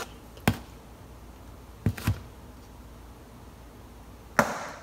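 An egg being knocked against the rim of a plastic mixing bowl to crack it: a few separate sharp taps, the loudest near the end, with a brief crackle after it.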